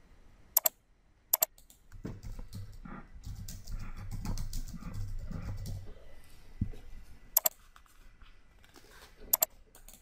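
Computer mouse clicking, four sharp clicks, with a few seconds of keyboard typing between the second and third.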